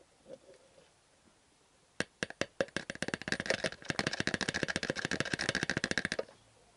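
Fork oil poured from a plastic measuring jug into an upright motorcycle fork tube, splashing and gurgling in a fast run of clicks that starts about two seconds in, quickens, and stops suddenly about four seconds later.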